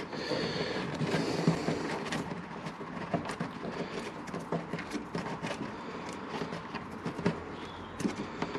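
Rubber fuel hose being worked by hand onto a scooter's fuel pump spigot: irregular small rubbing, scraping and clicking handling noises close to the microphone.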